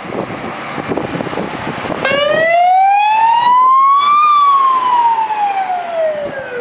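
Scania fire engine's siren comes on about two seconds in and sounds one slow wail, rising in pitch for about two seconds and then falling back.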